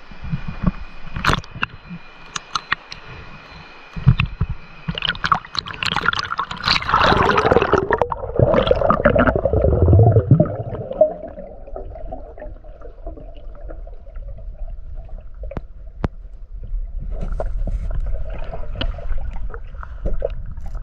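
Water moving and bubbling around the camera's microphone, as when a camera is in or under river water, with sharp knocks in the first few seconds and a louder surge of water noise about a third of the way in.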